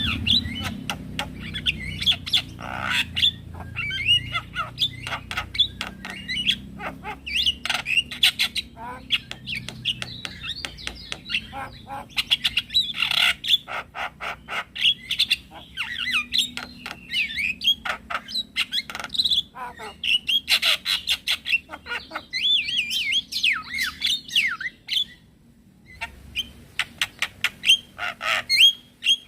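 Male Javan myna (jalak kebo) singing a rapid, varied string of sharp clicks, wavering whistles and squawks, with a short break near the end.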